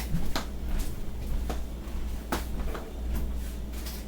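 Scattered light knocks and clicks of kitchen items being handled and set down, over a steady low hum.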